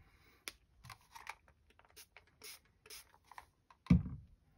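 Light scratching and rustling of tools and paper fragments being handled on a cutting mat, then a sudden louder thump about four seconds in.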